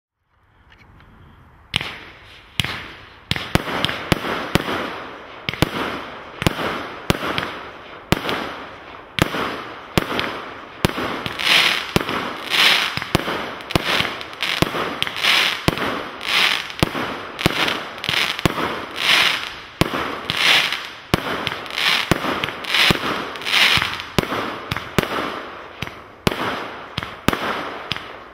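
Hallmark 'The Bully' multi-shot firework cake: a short quiet hiss from the lit fuse, then the cake firing shot after shot, about one and a half a second, each a sharp report with a short noisy tail.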